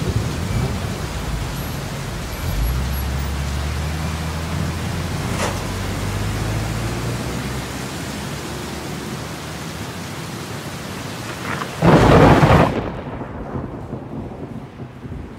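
Steady heavy rain, with a low hum joining about two and a half seconds in and fading out by about eight seconds. About twelve seconds in comes a short, loud crash, after which the rain turns muffled.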